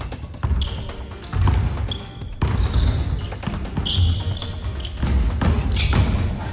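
A basketball is dribbled on a hardwood gym floor in a run of irregular thumps, while sneakers squeak sharply about four times as the players cut and shuffle.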